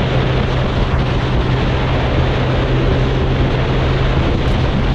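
Sport motorcycle running steadily at cruising speed, its engine a constant low drone under heavy wind rush on the helmet-mounted microphone.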